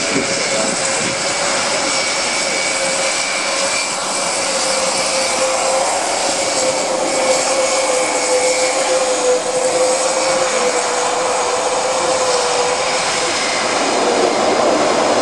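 Airbus A400M's four TP400 turboprop engines running steadily, a sustained whine holding one pitch over a wide rushing hiss.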